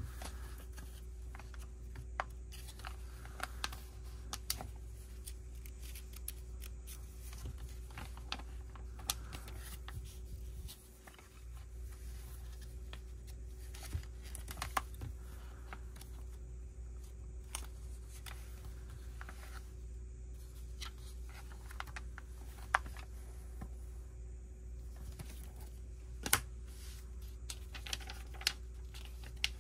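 Lego pieces being handled and pressed together: scattered small plastic clicks and taps, a few sharper than the rest, over a steady low hum.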